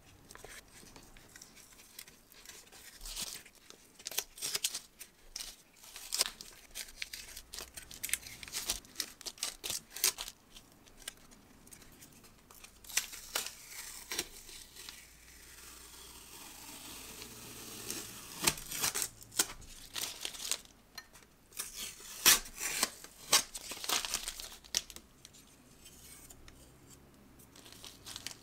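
Blue masking tape being peeled off a spray-painted metal typewriter part: a run of irregular short rips and crackles with brief pauses between pulls, and the crinkle of loose tape being handled.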